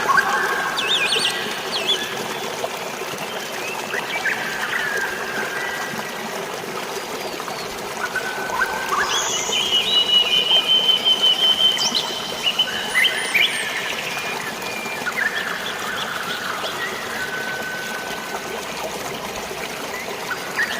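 Water trickling and flowing steadily under birds chirping and whistling, with many short calls and a rapid repeated trill about ten seconds in.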